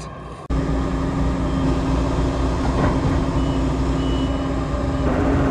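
Claas combine harvester's engine running steadily, starting abruptly about half a second in, with two short high beeps about three and four seconds in.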